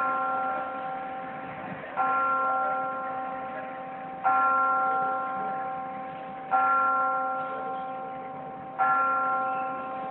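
A single church bell tolling at an even pace, struck four times about every two and a quarter seconds on the same note, each stroke ringing on and slowly dying away before the next.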